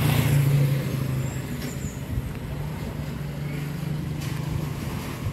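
A motor vehicle engine running nearby on a city street, a steady low hum that is loudest in the first second and then fades, over general traffic noise.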